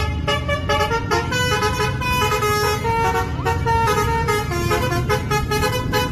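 Bus 'telolet basuri' multi-tone horn playing a quick melody, the notes stepping up and down several times a second, over a low rumble from the bus.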